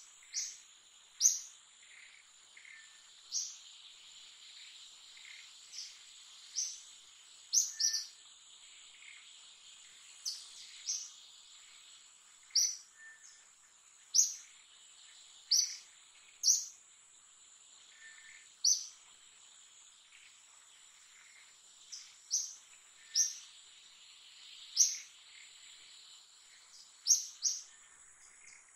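Forest ambience: a bird gives short, sharp, high chirps that sweep downward, repeated irregularly about every one to two seconds, over a steady high-pitched drone of insects.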